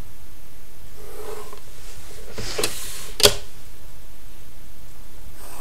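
Drawing instruments handled on a drawing board: a wooden straightedge and a plastic set square shifted across the paper, with light clicks and knocks as they are set down, the sharpest about three seconds in.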